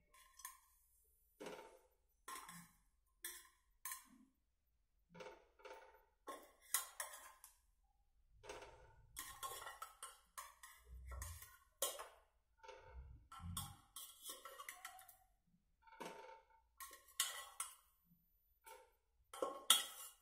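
Irregular clinks and knocks of metal kitchenware, about one a second: a pressure cooker pot and a steel plate struck and scraped as boiled potatoes are lifted out of the pot onto the plate, with a couple of dull thumps partway through.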